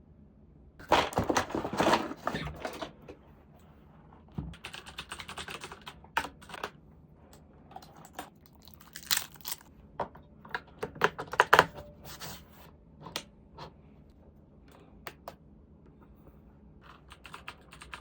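Typing on a FILCO Majestouch Convertible 3 mechanical keyboard with clicky Cherry MX Blue switches. The keys click in irregular bursts: a fast run about a second in, more runs over the next several seconds, then only a few scattered keystrokes.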